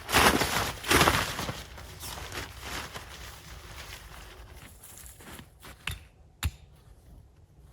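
Footsteps crunching and rustling on dry ground, two heavy steps right at the start and then softer rustling, with two sharp clicks about six seconds in.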